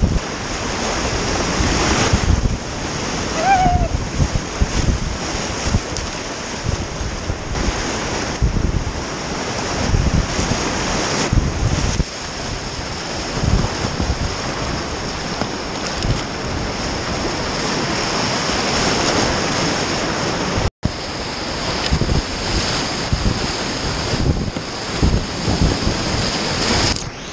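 Whitewater rapids rushing and splashing around a kayak, close on a small camera microphone, with wind rumble on the microphone. The sound cuts out for a moment about three-quarters of the way through.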